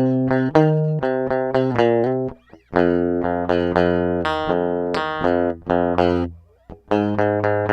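Clean electric guitar recorded direct through a passive DI box, with no amp or effects, playing a spanky, punchy rhythm part of short chord stabs. It breaks off briefly twice, about two and a half and six and a half seconds in.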